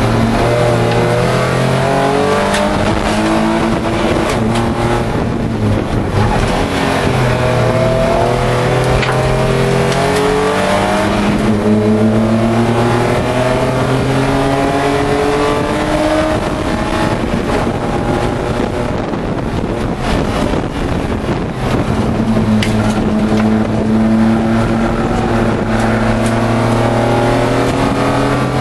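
BMW E30 Pro3 race car's straight-six engine heard from inside the cockpit under hard acceleration, climbing in pitch through each gear and dropping back at the upshifts.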